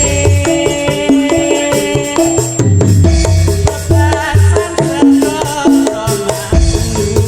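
Topeng Ireng dance music: a melody of held notes over deep drum beats about once a second, with rattling percussion throughout.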